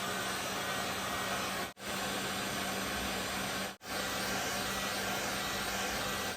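Heat gun blowing hot air steadily on its first setting, with a low hum under the hiss, while it heats a replacement chip onto a laptop circuit board. The sound cuts out abruptly for a moment twice.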